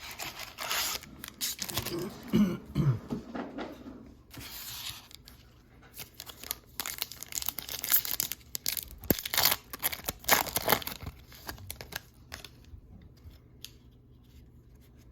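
Trading card pack wrappers being torn open and crinkled: a run of irregular rips, rustles and sharp crackles that thins out over the last few seconds.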